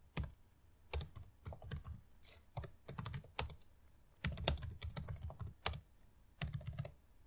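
Typing on a computer keyboard: irregular runs of quick keystrokes separated by short pauses.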